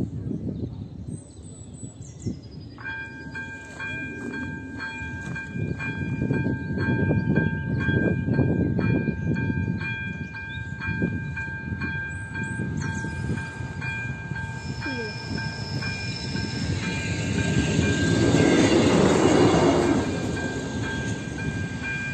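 Electronic warning bell of an AŽD 97 level-crossing signal starting up about three seconds in and ringing in a quick, even, high-pitched rhythm, the warning that a train is approaching. A broad rushing noise swells and fades near the end.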